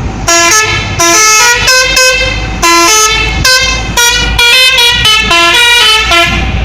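A bus's 'telolet' multi-tone air horn playing a quick tune of a dozen or so loud notes at changing pitches, over a low rumble.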